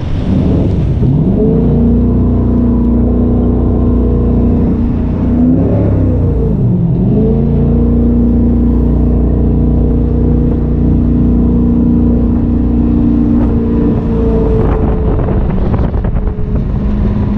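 A jet boat's 420 hp Chevrolet engine running hard under way, with wind and water rushing past. Its pitch climbs in the first second, dips about six seconds in, climbs straight back, and eases a little lower near the end.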